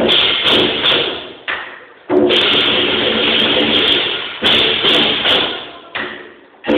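Lion dance percussion: drum with crashing cymbals and gong, hit hard at uneven intervals, each crash ringing and fading before the next, echoing in a large hall.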